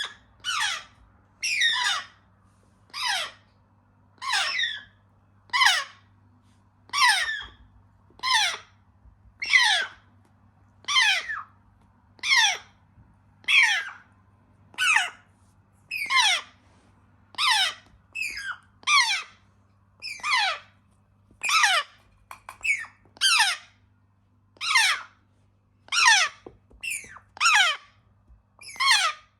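African grey parrot chicks giving repeated harsh squawks, each call falling in pitch, at a steady pace of about one a second. These are typical of chicks begging to be fed.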